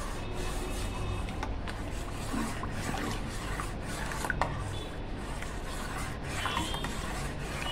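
Steel spoon stirring a thin mango drink in a stainless steel pot, rubbing and scraping against the metal sides and bottom steadily, with faint ticks where it knocks the pot.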